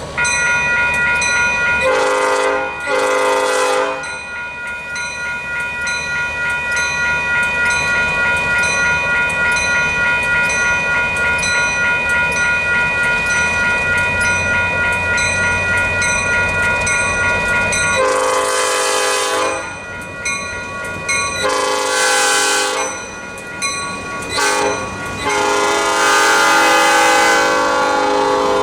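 Baldwin S12 diesel switcher locomotive blowing its horn: a doubled blast early on, then long, long, short, long blasts near the end, the standard grade-crossing signal. A bell rings steadily at about two strokes a second through most of it, over the low rumble of the locomotive.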